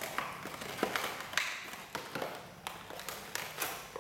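Plastic blister packaging of a WWE action figure crinkling and clicking irregularly as it is handled and slid out of its cut-open cardboard box.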